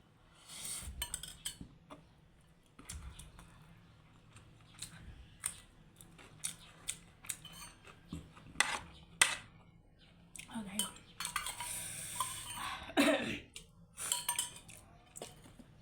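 Cutlery clinking and scraping against a plate or bowl during eating: irregular sharp clicks throughout, with a longer noisy stretch a little past the middle.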